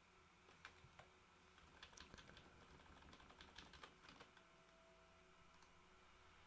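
Faint computer keyboard keystrokes: a couple of single taps, then a run of quick taps from about two to four seconds in.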